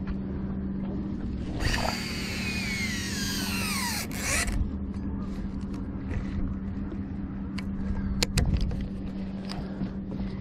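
Casting reel's spool whirring as a bait is cast out, a whine that falls in pitch for about three seconds and then stops abruptly, followed by scattered clicks from the reel. A steady low hum runs underneath.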